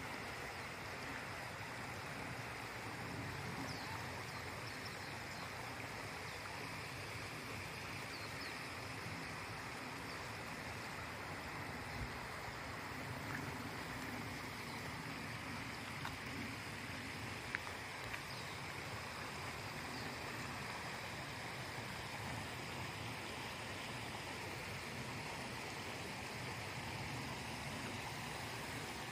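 Steady, faint outdoor background hiss, with a few faint short high-pitched chirps and a couple of small clicks.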